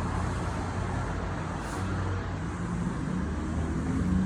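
Steady low mechanical hum and rumble, like a motor or engine running, with a faint rise near the end.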